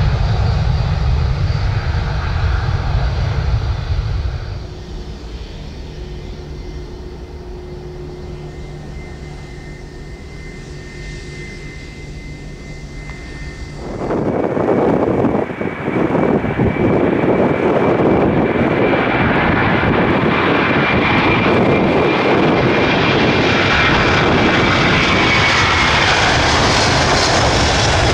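Jet airliner noise in two parts. First the low rumble of a departing Boeing 737-800 fades within a few seconds to a quieter, steady distant jet hum. Then, about halfway through, an Airbus A330-300 taking off cuts in abruptly with a loud, steady jet roar and a high engine whine.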